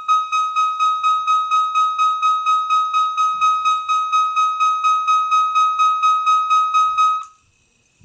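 System Sensor CH2415 piezo alarm sounding a single high tone that pulses about four times a second, then cutting off suddenly about seven seconds in.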